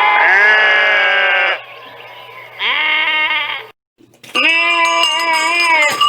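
Sheep bleating: three loud, drawn-out bleats, the last coming after a brief silence.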